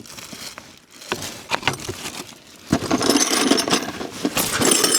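Small metal hand tools (spanners and wrenches) clinking and rattling as they are handled and sorted from the excavator's tool kit, a few light clicks at first, then a busier, louder jangle of metal on metal from about the middle on.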